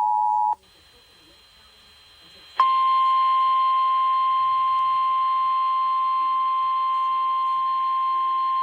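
Emergency Alert System two-tone attention signal cutting off about half a second in, then after about two seconds of faint hiss a single steady tone starting abruptly and holding: the NOAA Weather Radio warning alarm tone that precedes the severe thunderstorm warning message.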